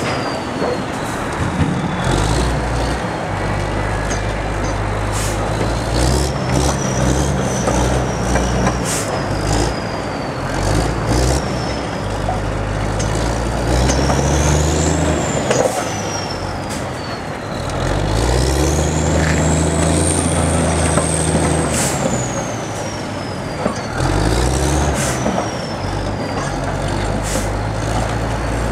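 Diesel engine of a red crawler crane working, revving up and settling back about four times, with a high whine rising and falling along with each rev. Scattered short clanks run through it.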